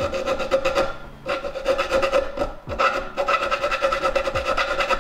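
Hand file rasping across a steel swivel plate in several long bouts of quick strokes, enlarging a mounting hole so it lines up with the seat base. The plate rings with a steady tone under the file, and there are short breaks about a second in and again past halfway.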